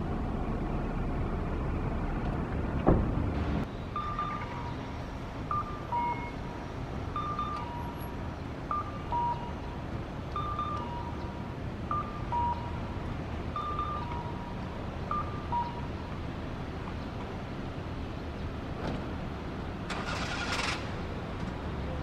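Steady hum of road traffic. There is a single knock about three seconds in. A two-note electronic tone, high then lower, repeats about every second and a half for some ten seconds. A short hiss comes near the end.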